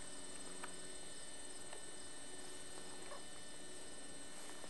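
Steady electrical hum made of several steady tones, with a few faint ticks.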